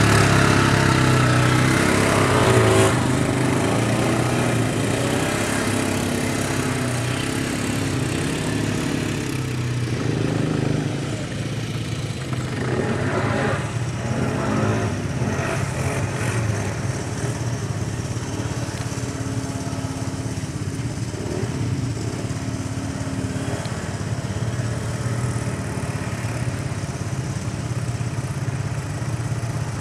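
ATV engine running continuously, its pitch shifting a little from moment to moment.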